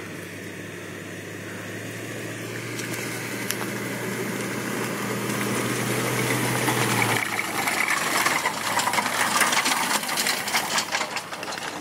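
The tow vehicle's engine runs steadily, growing louder as it pulls the boat trailer up the ramp. From about seven seconds in, the empty trailer comes out of the water and rolls over the ribbed concrete ramp, with water splashing and streaming off it and a rapid run of knocks and rattles.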